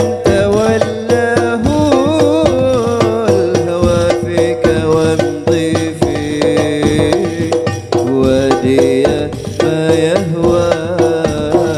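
A man singing an Arabic sholawat (devotional praise song) into a microphone in a wavering, ornamented melody, over steady drum accompaniment.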